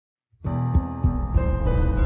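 Channel intro music starting about half a second in, with held tones and a few accented low hits.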